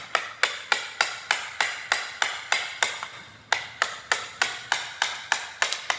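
Hammer striking a chisel in quick, steady blows, about three a second, chipping a glued-down strip of solid hardwood flooring loose from the concrete slab beneath.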